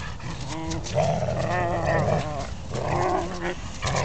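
Dogs play-fighting, with three drawn-out, wavering vocal sounds from the dogs, the middle one the longest.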